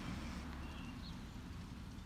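Quiet outdoor background: a low rumble easing off, with two faint, short, high bird chirps about a second in.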